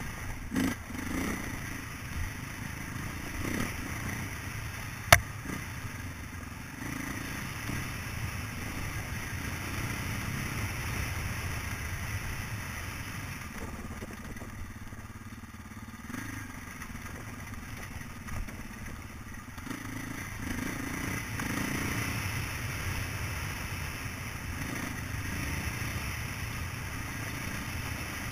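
Off-road motorcycle engine running as the bike rides a rough, rocky dirt trail, with knocks and clatter from the ground, and one sharp, loud click about five seconds in.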